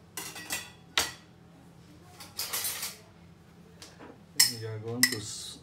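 Stainless steel cookware and utensils clinking and clattering: a run of sharp knocks, a short scrape about two and a half seconds in, and the loudest knock near the end.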